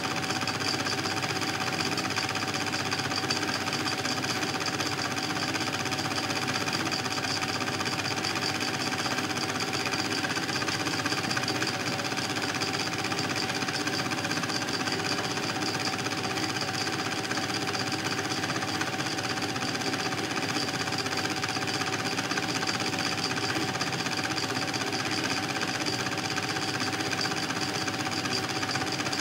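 Film projector running, its mechanism giving a steady rapid clatter with a constant whine, unchanging throughout: the sound of old silent home-movie film being played back.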